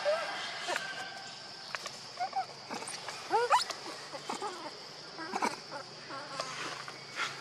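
Insects buzzing steadily, with several short rising squeaky calls over them; the loudest comes about three and a half seconds in.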